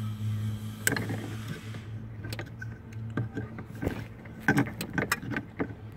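Sharp clicks and knocks of small parts being handled and pushed into place while fitting a replacement parking-brake release handle. They come about a second in, scattered through the middle, and in a thick cluster between four and a half and five seconds in, over a steady low hum.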